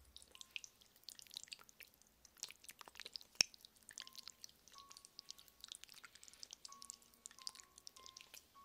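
Close-miked ASMR scratching and tapping on a microphone: a rapid, crackly stream of small clicks, with one sharp knock about three and a half seconds in.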